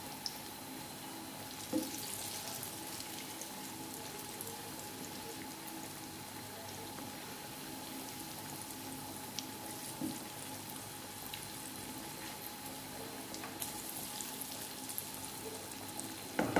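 Besan pakoras deep-frying in hot oil in a frying pan: a steady sizzle, with now and then a light knock of the slotted spatula in the pan.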